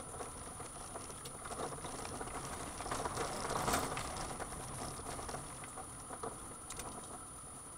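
Tata Xenon pickup driving slowly over a rough, stony dirt track: tyre and road noise with rattling and small knocks, a little louder about three to four seconds in.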